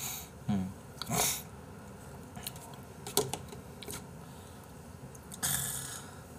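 Sparse eating sounds from raw beef being eaten with chopsticks: a few short mouth and breath noises, and light clicks about three seconds in. Near the end there is a longer breathy hiss.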